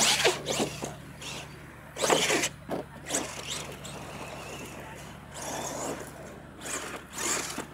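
Radio-controlled monster truck driving hard on a dirt course, its motor revving in several short bursts with tyres spinning and throwing dirt.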